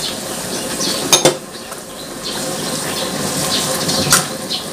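Minced pork scraped from a bowl into a wok of simmering chili paste and stirred in with a metal spatula: clinks of bowl and spatula against the wok over the sizzle of the sauce. There are two sharp clinks, about a second in and near the end.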